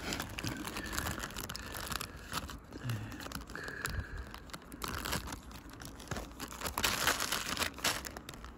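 Plastic courier mailer bag crinkling and rustling as it is handled and slit open with a small pocket knife, with a few short squeaks of the plastic.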